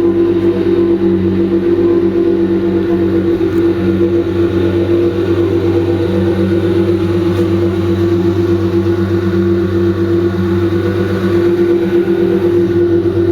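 2002 Nissan Maxima SE's 3.5-litre V6 exhaust at a steady idle: an even low drone that holds one pitch, with no revving.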